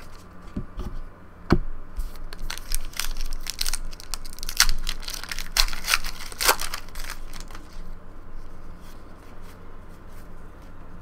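A trading card pack's wrapper being torn open and crinkled by hand: a dense run of sharp crackles from about one and a half to seven seconds in. After that comes softer rustling as the cards are handled.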